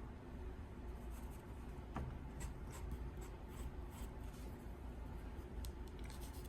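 HB graphite pencil shading on paper: a faint, steady scratchy rubbing of the lead across the paper, with a few light ticks.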